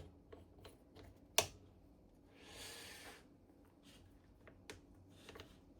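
Hands adjusting the swivel setting on a Deckel SO cutter grinder: light metal clicks, one sharp click about a second and a half in, and a brief sliding scrape a little later.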